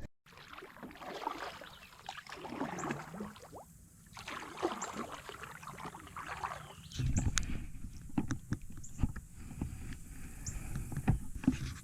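Kayak paddle strokes swishing through the water in repeated surges, with scattered sharp knocks and a low rumble from about seven seconds in.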